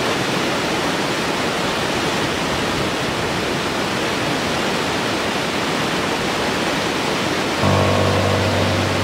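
Waterfall cascading down tiered rock ledges: a steady, even rushing of water. Background music with held notes comes in near the end.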